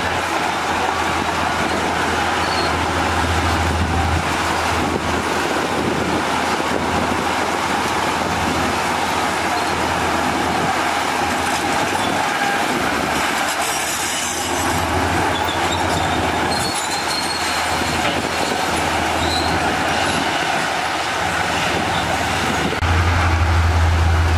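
Heavy diesel earthmoving machinery running steadily under load, a continuous deep drone with a noisy wash over it that grows louder near the end.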